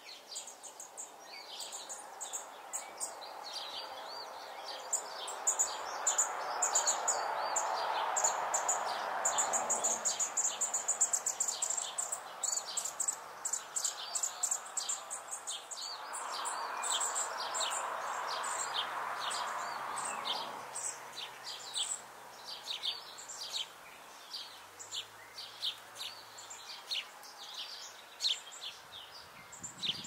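Small songbirds chirping busily, a steady run of short, high chirps and twitters. Twice a broad rushing sound swells up and fades away under them, and a faint low hum runs through the second half.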